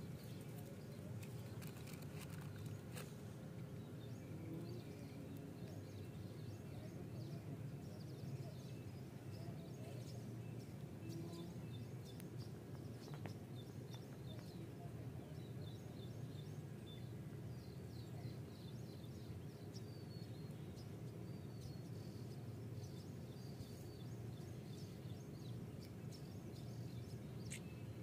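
Faint outdoor background noise: a steady low rumble with scattered faint bird chirps and a few soft clicks.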